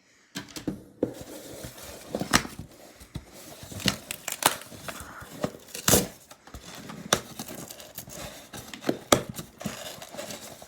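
Packaging being torn open by hand without scissors, with irregular rips and crinkling of paper.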